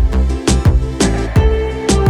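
Background music with a steady drum beat and sustained pitched notes.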